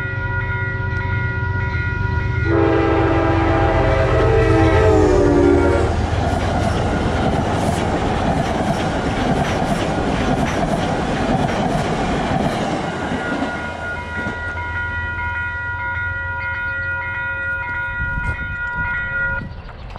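Metro-North commuter train passing close by: a low engine rumble, then the multi-note train horn sounding for about three seconds with its pitch dropping as it goes by. The coaches then roll past with wheels clicking over the rail joints, easing off after about fourteen seconds.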